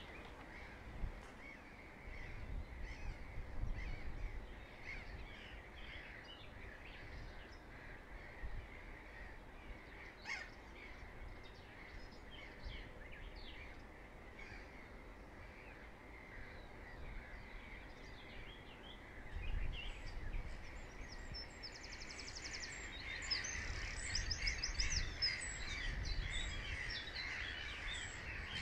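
Wetland ambience: many birds calling faintly in the distance, with gusts of low wind rumble on the microphone. Near the end the calling grows busier and a rapid high trill joins in.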